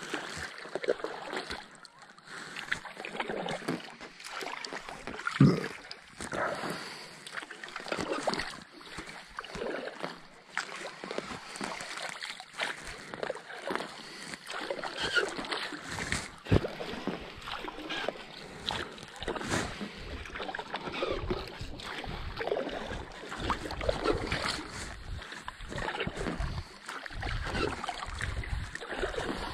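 Double-bladed kayak paddle dipping and pulling through calm water in a steady stroke rhythm, with small splashes and drips and occasional sharp knocks, the loudest about five seconds in.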